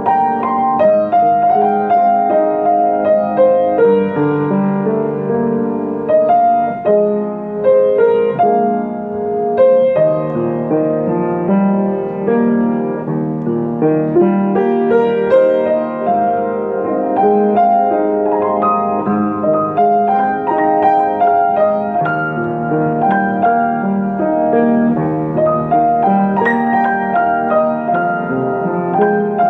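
Solo piano playing a melody over chords, an arrangement set in E-flat major.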